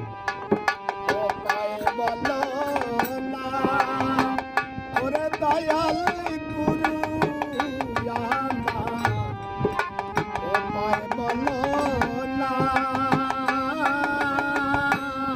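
Instrumental interlude of a Bengali folk song: a gliding melody line played over steady tabla drumming.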